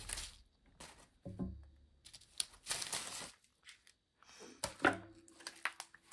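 Small plastic packets of diamond-painting drills being handled: irregular crinkling of the plastic and tearing as the packets are opened, with a few soft knocks.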